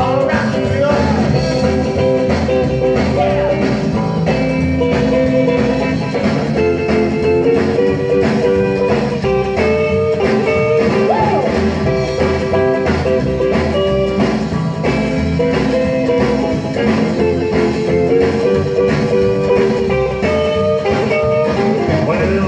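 Rock and roll record playing on a vintage console radiogram's record changer and built-in speaker: an instrumental break with no singing, carried by guitar.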